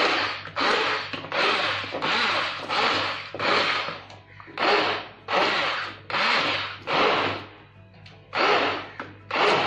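Handheld immersion blender running in short bursts, roughly one a second with a longer pause near the end, its blade whirring through pressure-cooked tomatoes and tamarind in an aluminium pressure cooker to puree them smooth.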